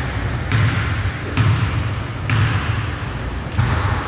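Basketball being dribbled on a gym floor, a bounce about every second, over steady low gym noise.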